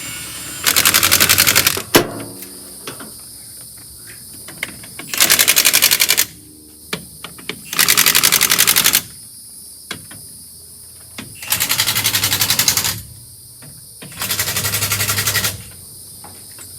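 Impact wrench hammering wheel lug nuts off a truck wheel in five bursts of a second or so each, a fast even rattle, with small clicks between the bursts.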